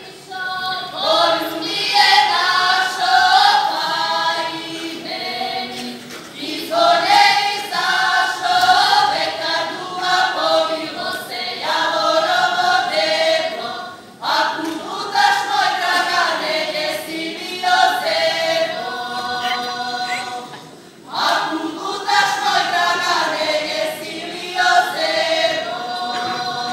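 A women's vocal group singing a Serbian folk song in unison, unaccompanied, in long phrases separated by short breaths.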